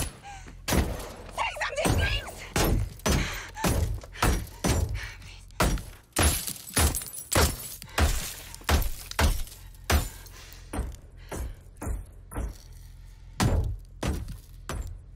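Gunfire striking a car's bulletproof side window: a rapid string of sharp cracks and thuds, about two a second, becoming sparser after about ten seconds.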